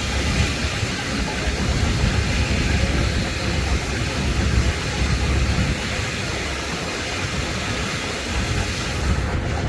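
Steam-engine-driven sawmill running: a steady mechanical noise with a deep low end and a hissy top.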